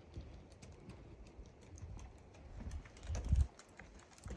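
Footsteps on a walking trail: a string of irregular light clicks, with a low thump about three seconds in.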